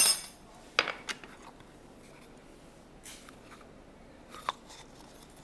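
A few light clicks and taps of a plastic measuring cup and utensils against bowls as semolina is measured out. The sharpest click comes at the very start, two more just under a second in, then only faint ticks.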